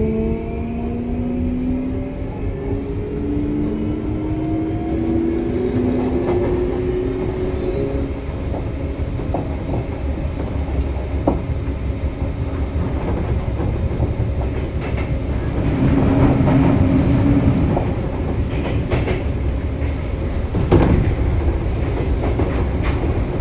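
Sotetsu 9000 series electric train running: the traction motors and inverter whine in several tones that rise in pitch as the train picks up speed over the first several seconds. Then comes steady running noise with wheel clicks over the rail joints, and a sharp knock about 21 seconds in.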